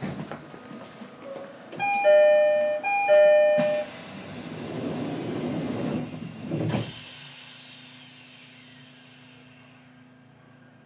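Door-closing chime of an E129 series train, a multi-tone ding-dong sounded twice in quick succession, followed by a loud hiss as the doors move and a thud as they shut. Afterwards a quieter steady low hum remains.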